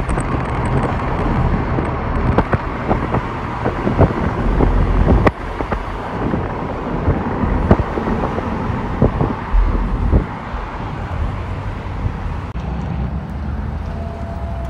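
Outdoor noise from phone recordings: wind rumbling on the microphone over road traffic, with scattered clicks and knocks. The sound changes abruptly a few times where the clips are cut together.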